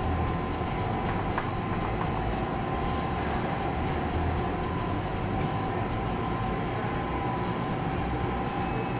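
Steady mechanical hum and rumble of running machinery, with a couple of faint clicks about one and a half and two seconds in.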